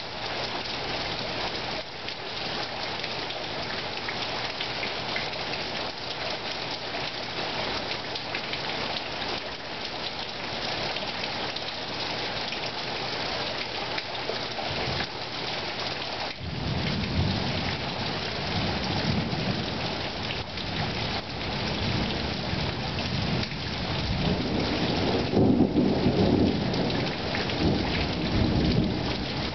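Heavy thunderstorm downpour, a dense steady hiss of rain. About halfway through a long rumble of thunder comes in and builds, loudest a few seconds before the end.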